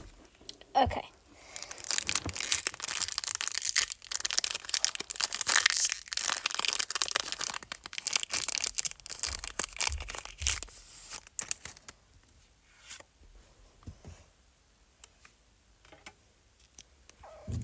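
Foil Pokémon trading-card booster pack being crinkled and torn open by hand, a dense crackle that dies down after about eleven seconds to a few faint rustles.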